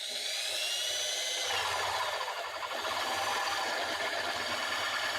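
Power drill boring out a brake-caliper bolt collar, the bit cutting steadily and slowly through the metal. A thin, high squeal rises and then falls over the first couple of seconds.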